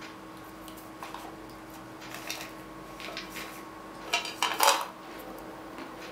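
Salted peanuts rattling in a metal can: a few small clinks, then a louder clattering rush of nuts as the can is tipped up to the mouth about four seconds in.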